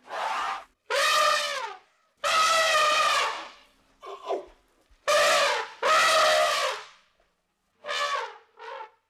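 Elephant trumpeting: a series of about eight brassy blasts, each a second or less long with short gaps between, several bending down in pitch at the end. The last two, near the end, are shorter and weaker.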